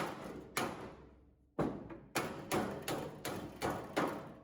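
Hammer blows on a steel body panel, beating dented sheet metal back into shape without a dolly behind it. There are about nine sharp strikes, each with a short ringing decay: two near the start, a pause of about a second, then a quick run of seven.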